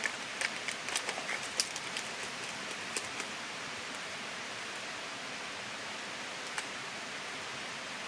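Steady rushing of a waterfall, an even wash of water noise, with a few light rustles and clicks in the first three seconds.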